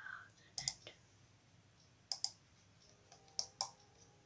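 Clicking at a computer: three pairs of short, sharp clicks, each pair about a second and a half after the last.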